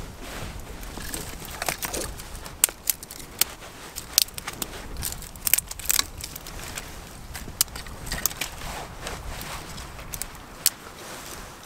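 Thin dry twigs snapping and clattering as they are broken and laid by hand over split kindling. The sound is a string of sharp, irregular cracks over a soft rustle.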